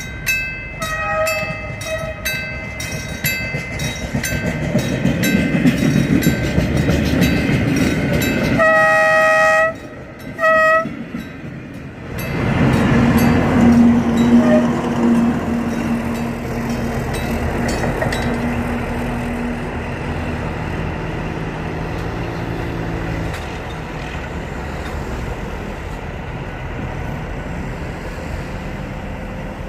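TCDD DE 24000-class diesel-electric locomotive DE 24312 hauling a freight train: wheels click in a steady rhythm over the rail joints, then the locomotive's multi-note horn sounds one blast of about a second, followed by a short one. After that comes a loud rush as the train passes, with a steady engine hum, easing into a continuous rumble of freight wagons rolling by.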